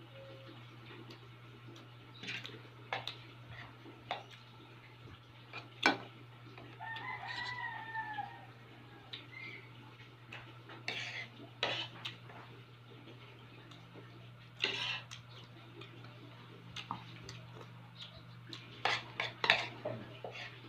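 A rooster crows once, about seven seconds in, a pitched call of roughly a second and a half. Around it come scattered clicks and knocks of spoons and forks against plastic food containers and a bowl.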